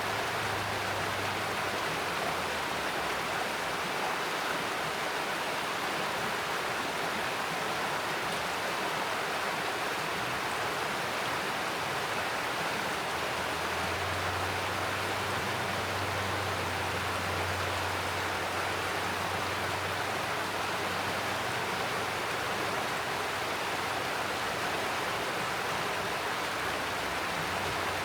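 Mountain stream rushing steadily over rocks, a continuous even flow of water.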